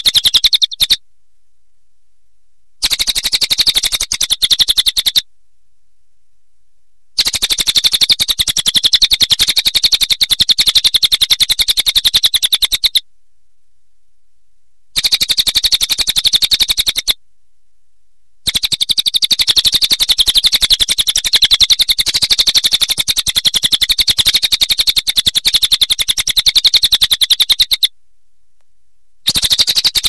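Crested jay (cililin) giving loud, very rapid rattling calls in repeated bouts several seconds long, separated by short silences.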